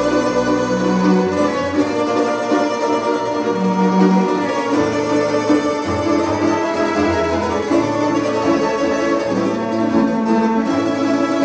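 A tambura band playing: plucked tamburas together with a bowed cello and double basses, carrying a tune over a moving bass line.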